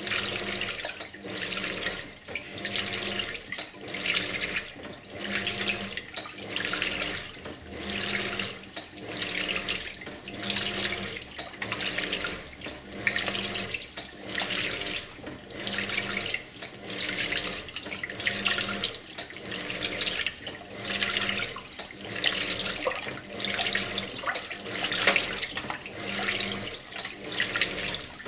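2001 Simpson Esprit 550 washer agitating a full load in water. The water sloshes in a steady rhythm, one swish about every 1.3 seconds, with a low motor hum on each stroke.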